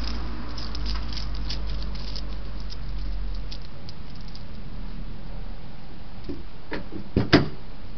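A hedgehog stirring in its nest of dry grass and leaves: light, scratchy rustling of the bedding over the first few seconds, then a quick cluster of louder rustles about seven seconds in, over a steady hiss.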